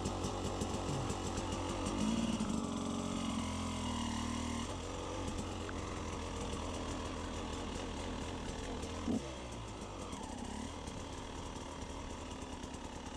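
Husqvarna TE 300 two-stroke enduro motorcycle engine running at low revs. The revs rise about two seconds in and settle back a couple of seconds later, and there is a single sharp knock about nine seconds in.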